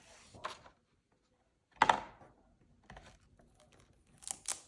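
Quiet handling noises in a small room: a soft short sound about half a second in, a louder rustling swish about two seconds in, and two quick clicks near the end.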